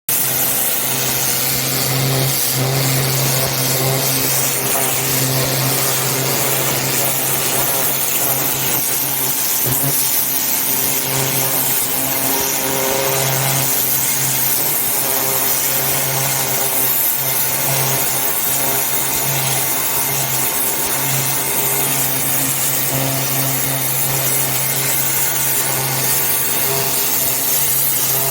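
Pressure washer spraying: a steady hiss of high-pressure water over the low, even hum of the machine, starting abruptly.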